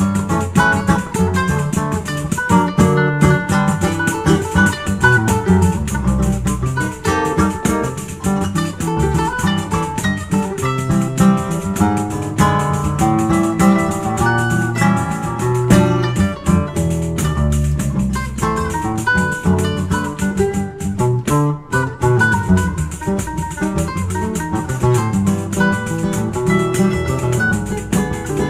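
Brazilian choro played by a trio: a bandolim carries the melody in quick runs, a seven-string nylon-string guitar plays bass lines and chords, and a pandeiro keeps a rattling rhythm.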